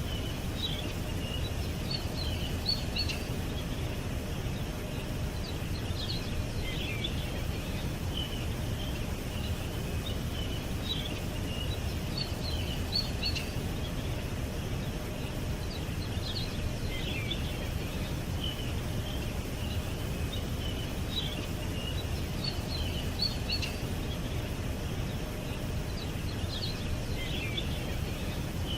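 Birds chirping in short, scattered clusters of high notes every few seconds, over a steady low rumble of outdoor background noise.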